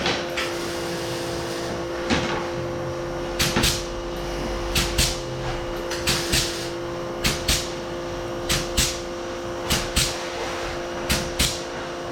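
Sharp clicks in pairs, about one pair every second and a half from a few seconds in, over a steady electrical hum.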